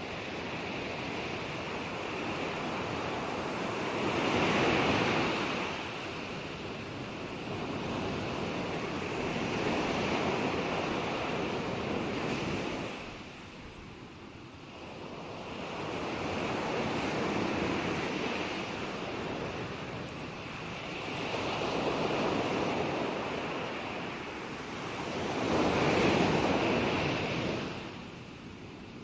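Gentle ocean waves breaking and washing ashore, a new surge swelling and fading about every four to six seconds; the loudest surges come about five seconds in and near the end.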